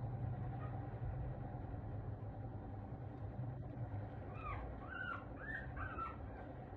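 A cat mewing in about four short calls, a little past halfway through, over a steady low background hum.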